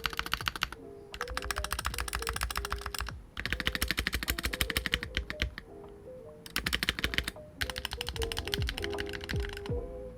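Stock NK65 Superuser Edition 65% mechanical keyboard being typed on fast in several runs of clacking keystrokes with short pauses between. Its stock Cherry plate-mounted stabilizers are unlubricated out of the box, which makes the board sound poor. Light background music plays underneath.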